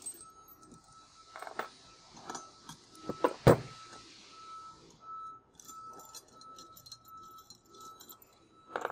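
Metal parts of a belt-cleaner tensioner base and its fasteners clinking and knocking on a tool tray as the top hat bracket is unbolted by hand: a few light clinks, with one sharper knock about three and a half seconds in. A faint steady high hum runs underneath.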